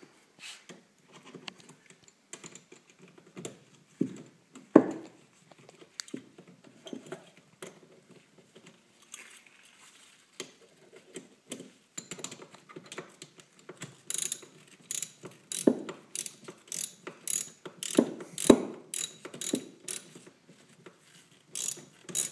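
Ratchet wrench clicking as it tightens the bolted cable connections on the terminals of 6 V deep-cycle L-16 batteries. The clicks are scattered at first, with a few louder knocks of the tool, then come in quick, regular runs through the second half.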